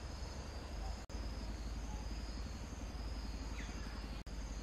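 Insects droning steadily in a high, even pitch over a low steady rumble, with a faint falling chirp about three and a half seconds in. The sound drops out for an instant about a second in and again just past four seconds.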